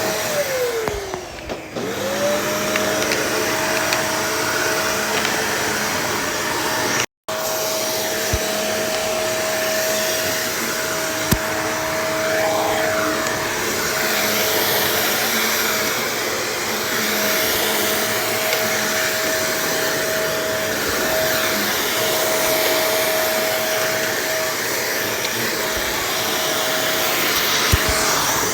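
Vacuum cleaner running steadily, a high motor whine over rushing air. About a second in, the whine sinks in pitch and climbs back as the motor is loaded. The sound cuts out for an instant about seven seconds in.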